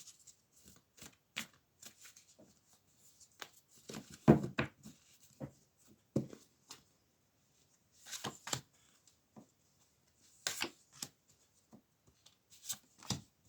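Tarot cards being shuffled and handled: irregular soft flicks and taps, with a heavier slap about four seconds in.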